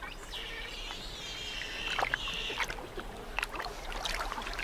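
Giant otter pups whining: one high, wavering call lasting about two seconds, with water splashing in the shallows and several sharp splashes in the second half.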